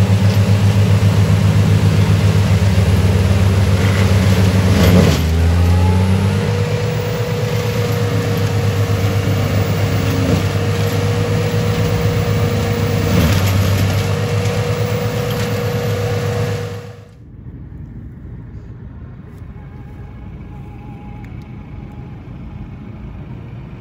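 FAE UMM/DT 225 forestry mulcher on a Deutz-Fahr tractor, running and chewing into the branches of a felled tree: the diesel engine drones steadily under a steady whine, with a few knocks as wood is struck and the engine pitch dipping under load about five seconds in. The sound drops away abruptly near the end to a much quieter background.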